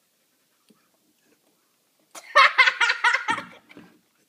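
Laughter: a burst of rapid giggling pulses lasting about two seconds, starting about halfway in after a near-silent start.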